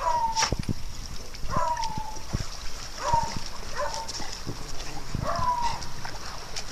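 A dog whining over and over: five short calls, each falling in pitch, about one every second and a half, with scattered clicks and knocks of dogs moving about.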